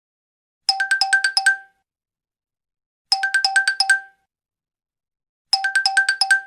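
Huawei Honor 3 phone ringtone playing through a smartphone's speaker: a quick trill of short electronic beeps, about a second long, repeated three times with about two and a half seconds between starts and silence in between.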